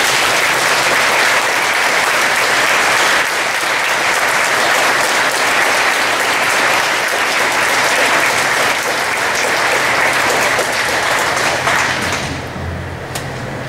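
Audience applauding, a steady clapping that thins out and dies away near the end.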